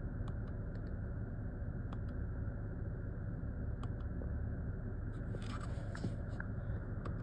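Steering-wheel control buttons clicking several times as the instrument-cluster menus are scrolled, over a steady low rumble inside the car's cabin. A brief rustle comes about five seconds in.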